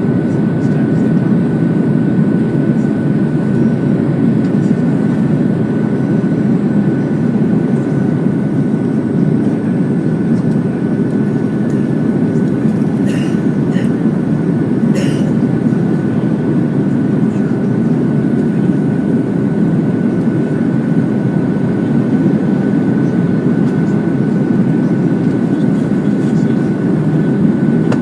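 Airbus A330 jet engines and airflow making a steady, loud rumbling noise with a thin constant whine above it during takeoff. Two short clicks sound about halfway through.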